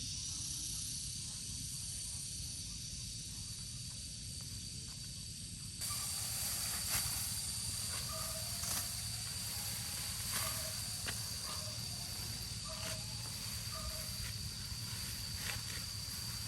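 Outdoor ambience: a steady high hiss with low rumble underneath. After a cut about six seconds in, short chirps repeat every second or so, with a few faint clicks.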